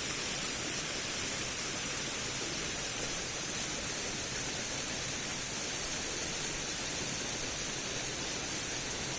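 Water pouring over a small dam in a steady, unbroken rush of splashing.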